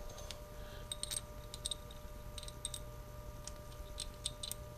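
Light, irregular metallic clicks and ticks as a small machined lathe handle part is handled and tried for fit, over a steady low hum.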